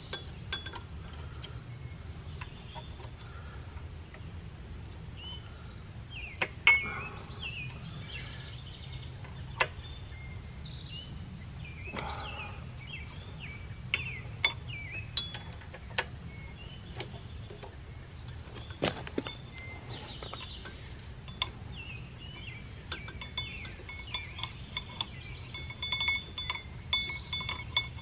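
Metal clinks and clicks from a wrench and bolts on a small engine's ignition coil as its mounting bolts are taken out and the coil is handled. The clinks are scattered single ones and come quicker near the end.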